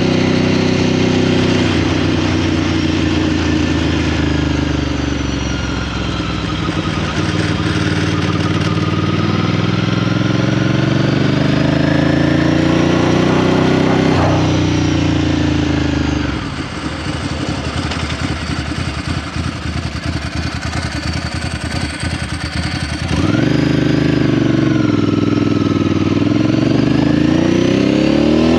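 Ducati Paul Smart 1000's air-cooled L-twin engine running on the road, its pitch rising and falling with the throttle. About halfway through it drops to a quieter, choppy beat for several seconds, then picks up again, revs climbing near the end.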